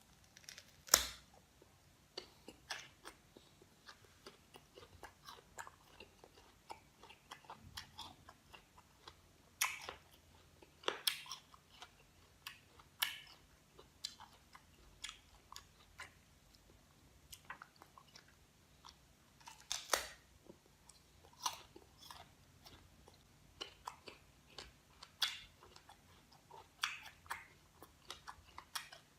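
Close-up crunchy chewing and biting of raw green guava: irregular crisp crunches and smacks, loudest about a second in and again around ten and twenty seconds in.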